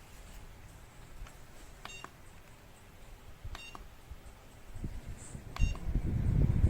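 Portable rechargeable fan beeping three times as its controls are pressed: short high beeps about a second and a half to two seconds apart. Near the end the fan starts and a rush of air on the microphone builds up quickly, becoming the loudest sound.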